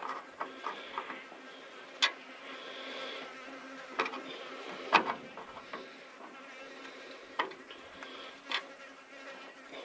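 Insects buzzing steadily in the background, broken by sharp clicks and knocks of hand tools on metal several times, the loudest about two and five seconds in, as hose clamps are worked on.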